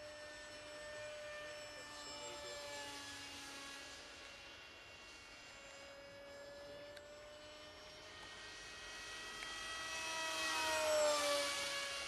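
Pushy Cat RC model jet's electric motor and pusher propeller whining in flight. It grows louder into a low pass about eleven seconds in, and the pitch drops as it goes by.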